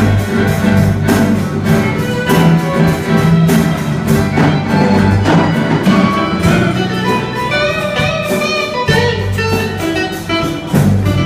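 Music with a steady beat, a bass line and sustained melody notes.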